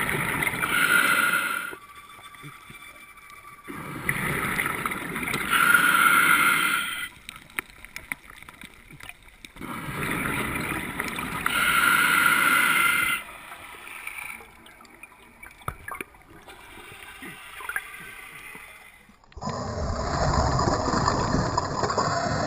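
Scuba diver's exhaled bubbles from the regulator, rushing in three bursts of two to three seconds each, about five to six seconds apart, with quieter breathing spells between. Near the end, after a cut, a steady rushing underwater noise.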